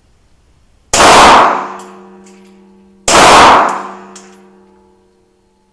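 Two shots from a Sphinx AT 2000 S 9x19 mm pistol, about two seconds apart. Each is a sharp crack with a long ringing tail echoing in the indoor range, followed by a small click about a second later.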